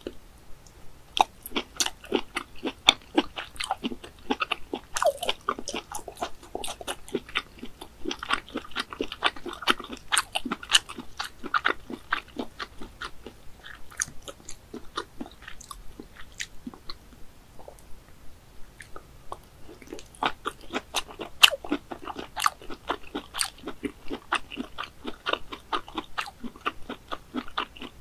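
Close-miked mouth chewing boiled snail meat: rapid clicks and smacks of biting and chewing. It eases off around the middle and picks up again about 20 seconds in.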